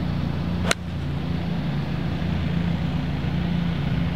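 A golf club strikes the ball on a full approach swing: one sharp click about two-thirds of a second in. A steady low mechanical hum runs underneath.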